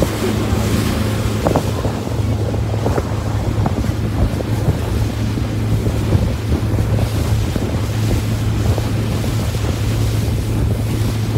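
Tour boat's engine running with a steady low hum, under the rush of water along the hull and wind buffeting the microphone.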